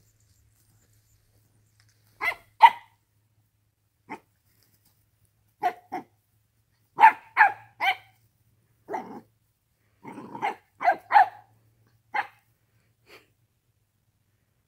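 Three-month-old corgi puppy barking at a calf while herding it: a dozen or more short, sharp barks in irregular clusters, starting about two seconds in.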